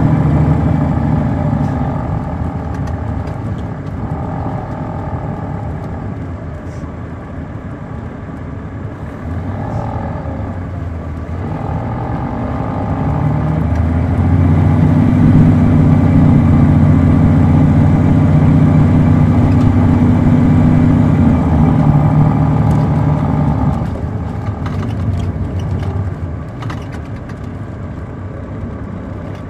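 Diesel coach engine, a Caterpillar C13 ACERT in a 2006 MCI D4500CL, running under way: it falls back at first, builds again about a third of the way in and pulls at its loudest for about ten seconds, then drops off in two steps to a lower steady running level near the end.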